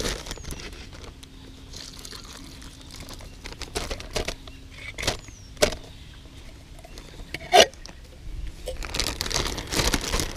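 Canned sweet potato chunks in syrup being tipped out of the can into a zip-top plastic bag of oats and pellets, making scattered soft plops and knocks, with one sharp knock about two-thirds of the way in. Near the end comes a stretch of plastic bag crinkling as the bag is handled.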